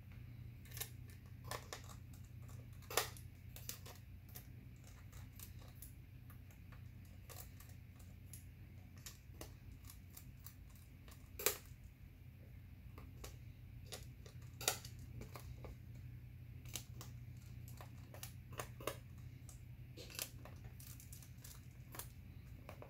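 Scattered light clicks and taps of a plastic laptop palm rest and keyboard assembly being handled and turned over, a few sharper knocks among them, over a steady low hum.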